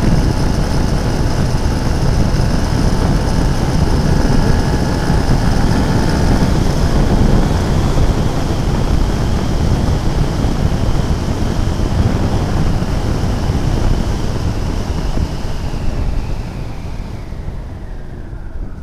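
Wind rushing over the microphone of a moving motorcycle, over the running engine. Near the end the engine note falls and the noise eases as the bike slows.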